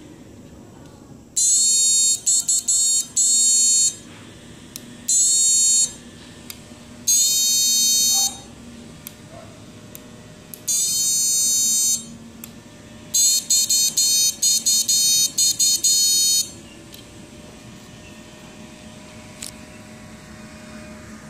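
Piezo buzzer of a PWM module's water-protection circuit sounding a high-pitched tone in about five on-off bursts of one to three seconds, some breaking into rapid stutters, as its sensor probe touches the water: the water protection tripping. A low steady hum runs underneath.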